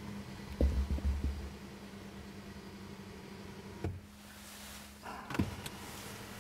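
Electric sunroof motor of a 2020 Mercedes-Benz G500 running with a steady hum as the roof moves, stopping with a click just under four seconds in. A few dull low thumps come about a second in, and another click with a short rustle near the end.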